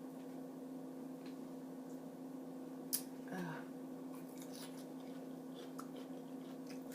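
Quiet eating sounds of a person chewing, with a single sharp click about three seconds in, over a steady low hum.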